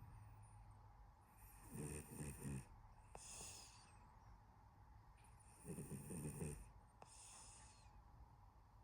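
Sleeping cat snoring: two snores about four seconds apart, each followed by a short hiss of breath.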